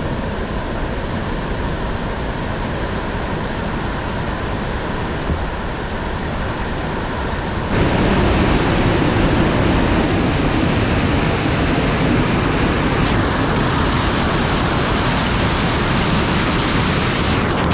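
Rushing water of a waterfall: a steady roar that steps up louder and brighter about eight seconds in, then brightens again a few seconds later.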